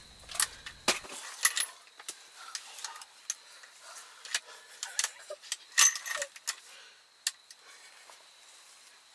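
Scattered light clicks, ticks and rustles from gear and a scoped rifle being handled on a shooting rest, irregular and uneven in loudness, the sharpest about six seconds in.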